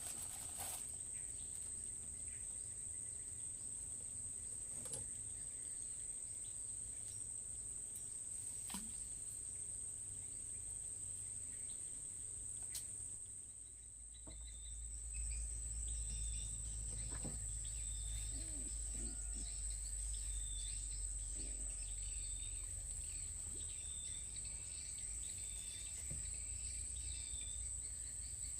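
Insects droning in a steady, high-pitched tone, with short chirps repeating about once a second through the second half, a few sharp clicks early on and a low rumble from about halfway.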